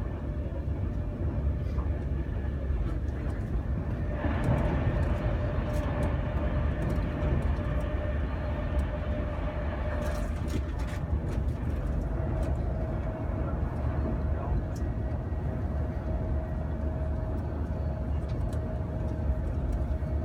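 Running noise inside a Pendolino electric tilting train's carriage on the move: a steady low rumble and hiss that grows a little louder about four seconds in, with a faint steady whine that comes and goes.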